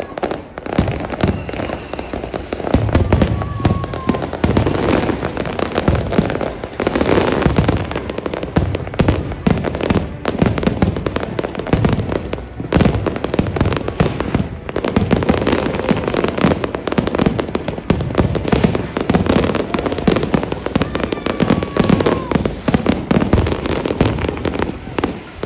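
Fireworks display: a rapid, continuous barrage of aerial shell bursts, bang after bang with no let-up.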